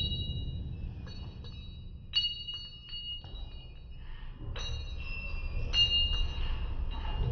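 The echo of the last 5.56 AR-15 shot dies away in the indoor range. Then come a few faint, sharp metallic clinks with a ringing tail, over a low steady rumble.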